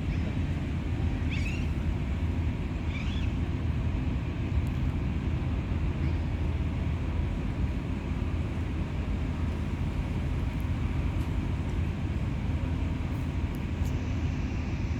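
Steady low rumble with a constant hum, like a running engine or traffic. Two short, high rising chirps come about one and a half and three seconds in.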